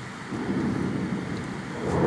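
Thunder starting to rumble about a third of a second in, low and building, over a steady hiss of rain.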